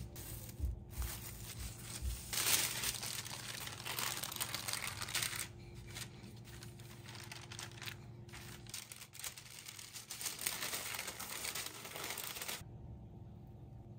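Plastic cling wrap and wax paper crinkling and rustling as a ball of cookie dough is unwrapped and rolled out flat with a wooden rolling pin between sheets of wax paper. The rustling stops suddenly near the end.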